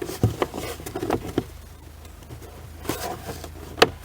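Small plastic clicks and knocks as a glove box light fixture is handled and pushed back into its opening in the glove box, with the sharpest click near the end.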